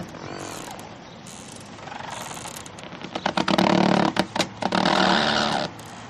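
Boat creaking as it rocks against a dock: a soft creak about two seconds in, then a loud, stuttering creak from about three and a half seconds in that holds for about two seconds.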